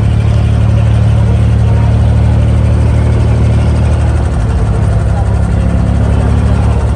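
Diesel engine of a wooden abra water taxi, heard from on board, running with a steady low drone as the boat pulls away from the dock; the low hum eases slightly about halfway through.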